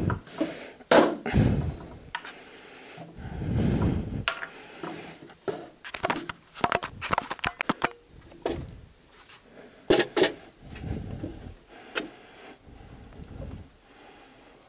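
Handling noise of a metal can of automatic transmission fluid being opened and carried: a series of short clicks, knocks and scrapes from the plastic spout cap and the tin, with a few dull thumps.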